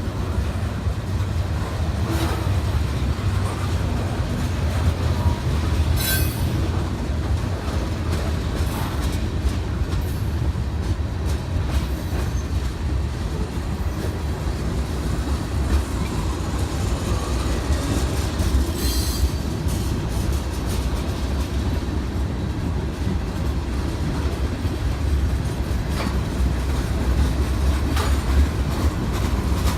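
Train rolling past on the rails: a steady low rumble with scattered clicks of wheels over the track, and brief high wheel squeals about six and nineteen seconds in.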